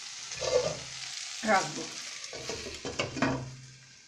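Diced potatoes, tomato and coconut sizzling in oil in a pan. About three seconds in a glass lid is set on with a click, and the sizzle fades to a faint hiss.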